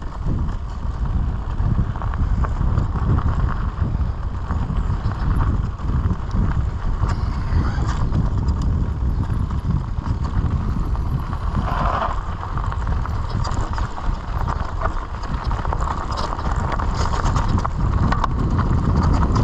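Mountain bike rolling downhill over a dirt and stony trail, its tyres crunching and the bike rattling with many small knocks over the bumps, under a steady rumble of wind on the microphone.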